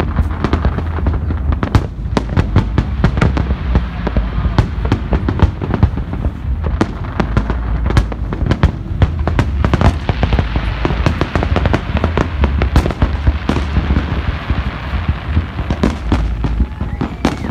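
Fireworks display: a rapid, continuous barrage of aerial shell bursts, many sharp bangs in quick succession over a steady low rumble. A hissing layer joins in about ten seconds in.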